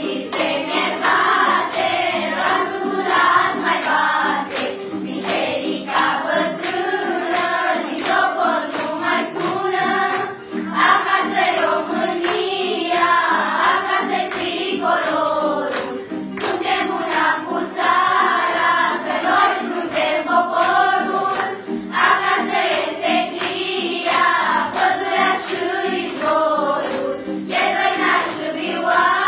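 A children's school choir singing a song together in phrases, over steady sustained notes of an accompaniment.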